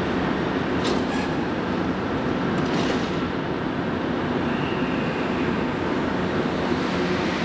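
A Montreal metro train stands at the platform with a steady rumble and hum. A couple of sharp clacks come about one and three seconds in as its doors close.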